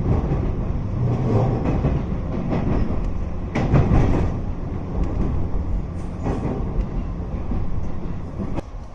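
JNR 213 series electric train running, a steady low rumble with scattered knocks and clatters from the running gear. The sound drops off sharply near the end.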